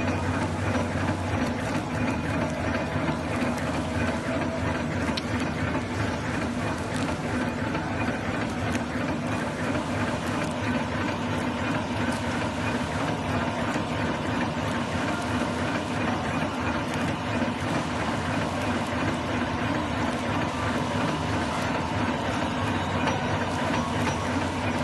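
Automatic play dough packing machine running at speed: a steady, rapid mechanical clatter over a constant hum.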